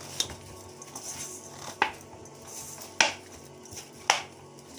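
Utensil knocking against a mixing bowl four times, about a second apart, while chin chin dough is mixed.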